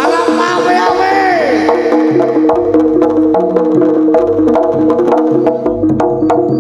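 Live Javanese jaranan (kuda lumping) music: a repeating pattern of held gong-like pitched notes with drum strokes and many sharp knocking percussion hits. A few swooping rising-and-falling notes sound over it in the first two seconds.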